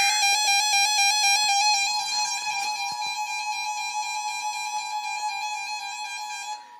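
Emergency Alert System alert tones: a buzzy electronic tone rich in overtones pulsing rapidly, joined about a second in by the steady two-tone EAS attention signal. The tones grow gradually softer and drop away near the end.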